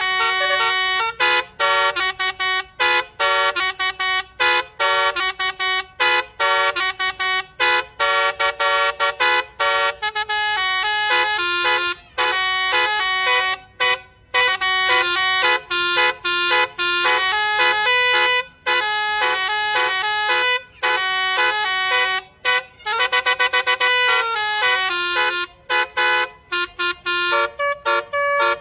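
Telolet multi-tone musical horn on a box truck playing a melody, note after note in short toots with brief gaps, including a quick run of very short toots late on.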